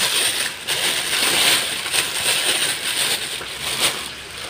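Thin plastic bag crinkling and rustling as a hand grips and handles it, in uneven surges that ease off near the end.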